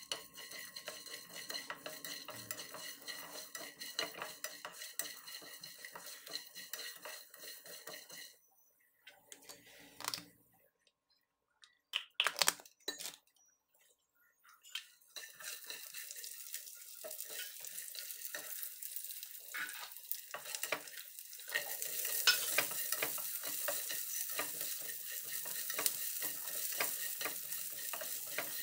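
Whole coriander and cumin seeds with garlic being stirred and scraped around a nonstick frying pan with a spatula, rattling and clicking. After a quieter stretch with a few knocks in the middle, a steady frying sizzle sets in and gets louder about two-thirds of the way through as green chillies fry in the oil.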